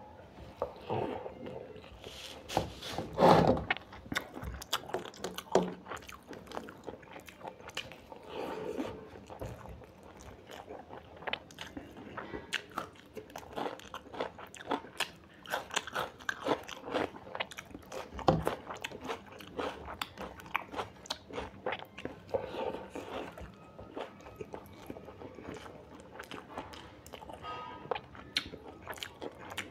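A person eating close to the microphone: irregular chewing and crisp crunching bites with wet mouth sounds, the loudest crunch about three seconds in.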